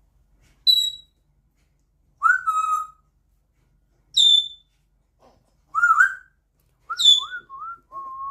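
African grey parrot whistling loudly in about five bursts. Sharp high whistles that drop in pitch alternate with lower, warbling whistled notes that bend up and down, ending in a run of short whistles and a held note.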